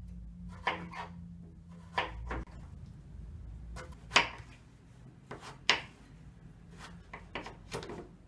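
Kitchen knife cutting a raw potato on a wooden cutting board: irregular knocks of the blade meeting the board, the loudest about four seconds in.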